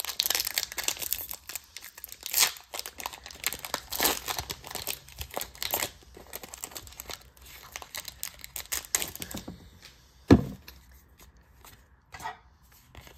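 Foil Pokémon trading-card booster pack being torn open and its wrapper crinkled and crackled for about nine seconds, followed by a single thump about ten seconds in.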